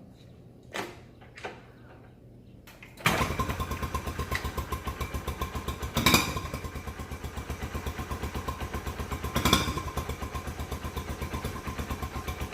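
1981 Honda Trail CT110's single-cylinder four-stroke engine starting about three seconds in and then running with an even, fast putting beat, with two brief surges in loudness. A couple of short knocks come before it starts.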